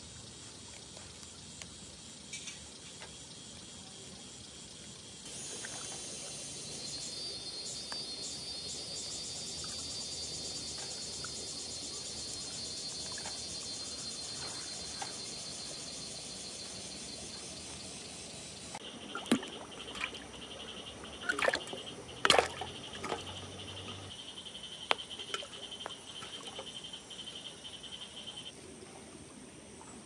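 Insects chirring over the faint wash of a shallow river. A high, fast-pulsing insect chorus comes in about a fifth of the way through and gives way past the middle to a lower, steadier insect chorus. A handful of sharp clicks of metal cooking tongs against a tabletop grill, the loudest a little past two-thirds of the way through.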